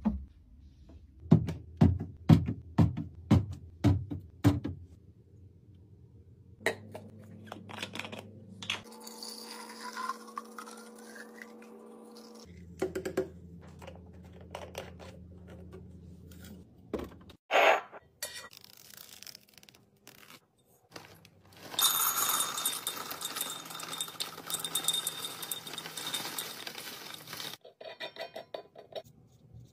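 Kitchen restocking sounds: plastic drink bottles knocked into place on a fridge shelf, about six knocks in quick succession. Then liquid pours into a carafe, its pitch rising as it fills. Later comes a long scraping, rattling stretch and a few light taps.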